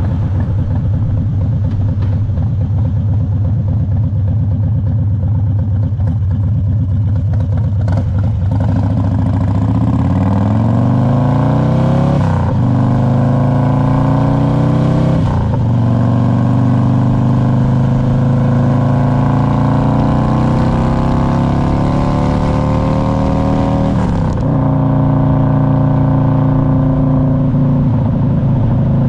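Harley-Davidson Road King's Twin Cam 88 V-twin running at low revs, then accelerating from about 8 seconds in. The pitch drops briefly at each of three upshifts, about 12, 15 and 24 seconds in, and then settles into steady cruising.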